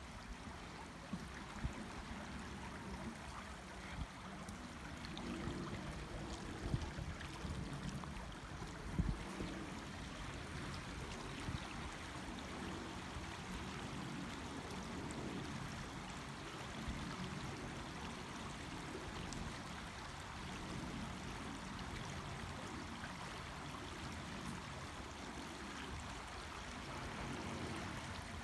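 Shallow creek running over a stony bed: a steady rushing babble of water. A few low thumps stand out in the first ten seconds or so.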